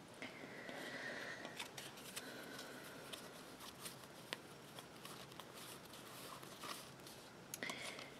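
Tarot cards handled and slid against one another in the hands, faint, with many light clicks and flicks of card on card.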